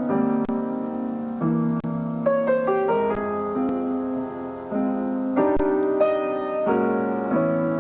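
Piano playing a slow jazz ballad, with sustained chords and a new chord struck every second or so.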